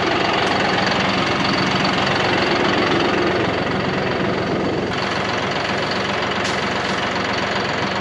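Tractor engine running steadily, heard close up.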